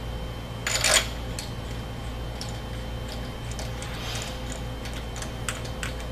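Hand handling of a crankshaft pulley on its crankshaft: a short metal scrape about a second in as it is worked onto the key, then scattered light clicks as the centre bolt is started by hand, over a steady low hum.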